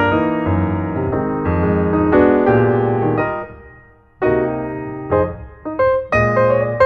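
Piano playing chords; the music dies away about three and a half seconds in, then resumes with separately struck chords.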